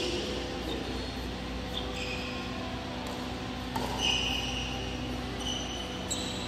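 Badminton shoes squeaking on the court mat several times during a rally, short high-pitched squeaks, with a single sharp racket hit on the shuttlecock a little before four seconds in, over a steady hum.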